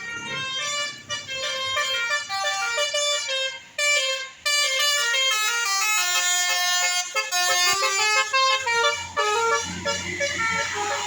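Bus 'telolet' (basuri) multi-tone horn playing a fast melody, its notes stepping up and down. A low engine rumble joins about eight seconds in.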